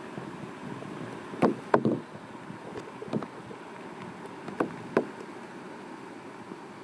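Gusty wind rumbling on the microphone, with five sharp knocks, two close pairs and one single.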